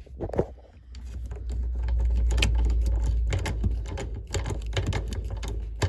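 Washing-machine agitator assembly being worked by hand after new agitator dogs were fitted: rapid plastic-and-metal clicking and rattling over a low rumble that swells about a second in.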